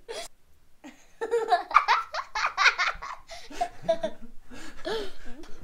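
People laughing: a run of laughter starting about a second in, followed by a few shorter laughs.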